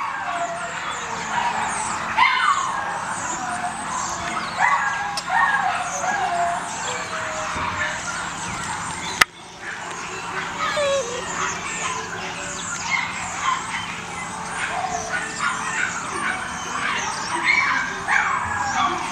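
Beagle puppies yipping and whining: many short high-pitched cries that rise and fall, overlapping throughout. A sharp click sounds about nine seconds in.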